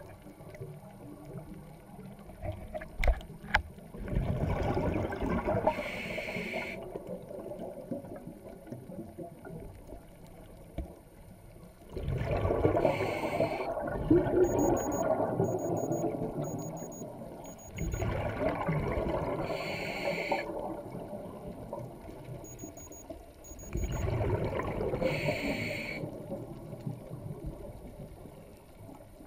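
Scuba diver breathing through a regulator underwater: a short hiss, then a few seconds of bubbling rumble, repeating about every six to seven seconds. A few sharp clicks about three seconds in.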